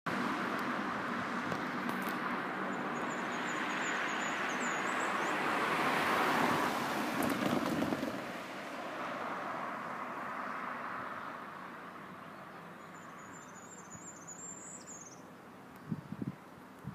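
A road vehicle passing, swelling to its loudest about six seconds in and then fading away, with a small bird giving short high chirping phrases twice.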